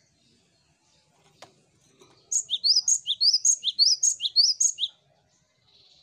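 Cinereous tit (gelatik batu) singing a fast run of about six identical repeated phrases, roughly two a second, each a short high note followed by a lower upswept note, lasting about two and a half seconds.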